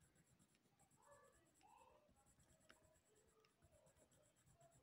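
Very faint scratching of a yellow colored pencil coloring on paper.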